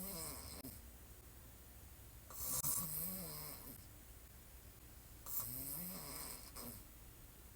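A woman snoring on her back with her mouth open: the end of one snore at the start, then two more about three seconds apart, each a breathy hiss with a low tone that rises and falls.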